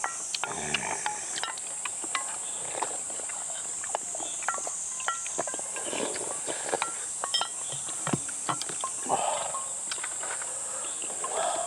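Steady high-pitched droning of summer insects, with frequent short clicks and light clinks of utensils against bowls and soft eating noises while a meal of beef-head soup is eaten.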